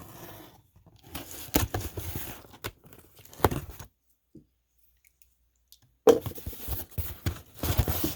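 Packing tape being pulled and torn off a cardboard box, with the cardboard rustling: two spells of rough tearing noise with a pause of about two seconds between them.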